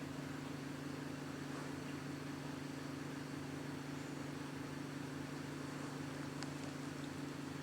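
A steady low hum under a soft hiss, with a faint click about six and a half seconds in.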